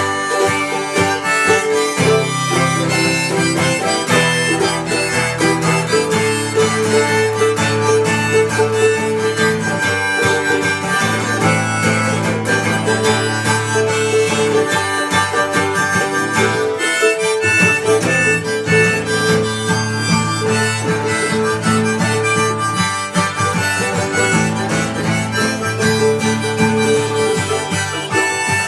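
Acoustic folk band playing live: a harmonica carries the melody over strummed acoustic guitar, with a steady bass line.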